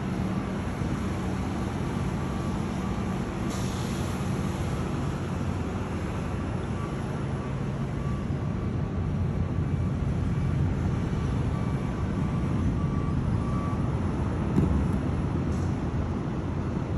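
Steady low rumble with a faint continuous hum, the background of a large cruise ship manoeuvring to dock, heard from a high balcony. A brief hiss comes about three and a half seconds in, and a short thump near the end.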